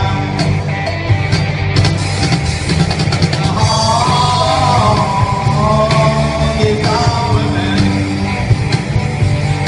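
Live rock band playing amplified through a hall PA: electric guitars, bass guitar and drum kit, with a singer's voice over them.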